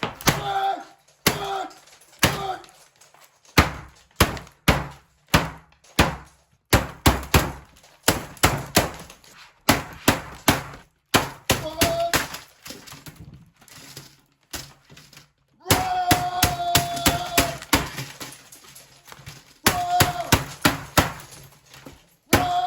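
Keys of a budget computer keyboard being typed on in irregular runs of clicks, with short pauses between runs.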